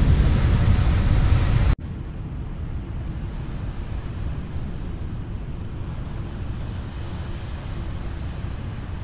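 Loud, dense low rumble of an erupting volcano, cut off abruptly about two seconds in. After it, a quieter steady low rumble of wind and water heard from a boat at sea.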